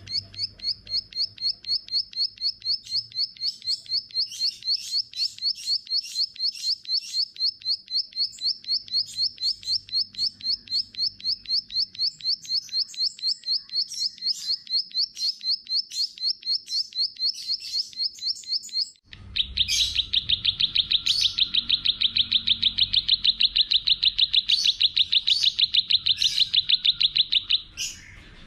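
A small songbird giving a long run of high, evenly repeated chirps, about four a second. About two-thirds of the way through it cuts abruptly to a lower, faster trill that stops just before the end.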